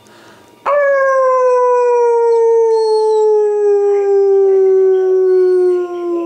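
A man imitating a dog's howl: one long, loud howl that starts about a second in, slides slowly down in pitch and trails off at the end.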